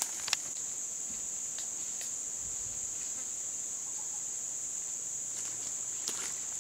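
Steady high-pitched insect chorus, an even unbroken buzzing trill. A few sharp clicks cut across it, the loudest about a third of a second in and another near the end.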